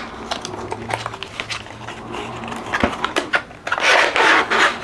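Packaging of a press-on nail set being opened by hand: small clicks and taps of the box and plastic tray, with a louder crinkle of plastic wrapping about four seconds in.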